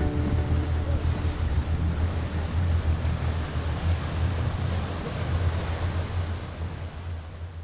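Wind buffeting the microphone and water rushing past a boat under way, an uneven low rumble with hiss above it, fading out near the end.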